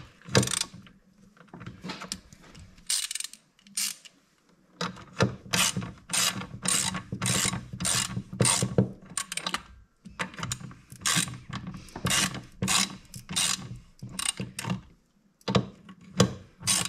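Hand ratchet wrench clicking in quick runs of back-and-forth strokes, about two or three a second, with short pauses between runs, as it snugs down the bolts of the power valve servo cover on an Arctic Cat snowmobile engine.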